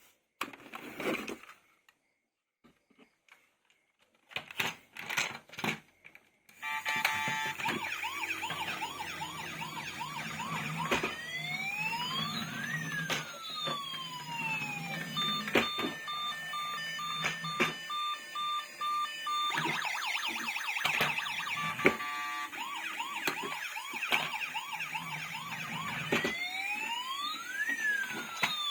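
A few clicks and knocks, then a toy emergency vehicle's electronic siren sound effect starts. It plays fast warbling yelps, long rising and falling wails and a stretch of even beeps, and the cycle starts over about halfway through.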